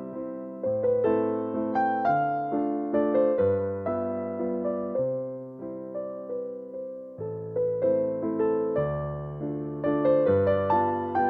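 Background music: a gentle keyboard melody of single notes, each struck and left to fade, over a lower accompaniment.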